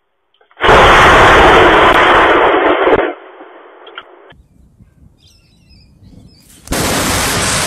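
Two very loud thunderclaps from nearby lightning, each starting suddenly and overloading the recording into distortion: the first lasts about two and a half seconds, and the second breaks in near the end.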